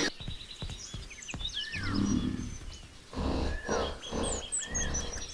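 Crocodile growl sound effect: low rumbling growls about two seconds in and again from about three to five seconds, over a jungle background of chirping birds.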